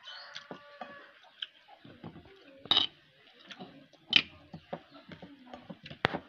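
Close-up mukbang eating noises of a woman eating rice with raw jengkol by hand: small mouth and food noises scattered throughout, with three sharp clicks. About four seconds in, a metal spoon scrapes sambal from a mortar.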